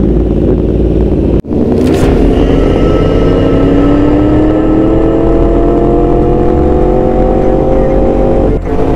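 Sport motorcycle engine pulling through a gear, its pitch rising slowly and steadily for several seconds. There is a sharp break about a second and a half in and a brief dip near the end, as at gear changes.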